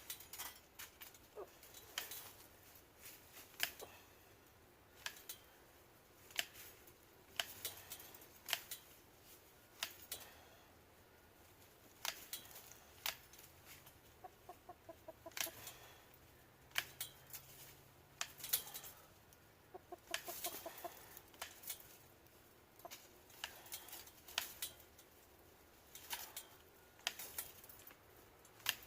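Chickens clucking in two short pulsed runs, with sharp irregular clicks or snips throughout.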